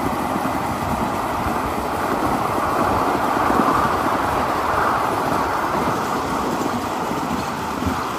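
A 1/8-scale ride-on train running along the track: a steady rumble and rattle of wheels on rail that grows a little louder about halfway through.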